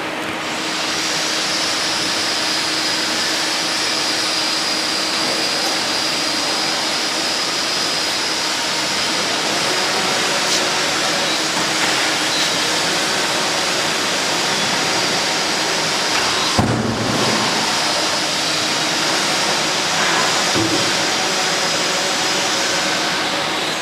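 Mattress-making machinery running: a steady mechanical hiss with a high whine, broken once about two-thirds through by a brief low thud.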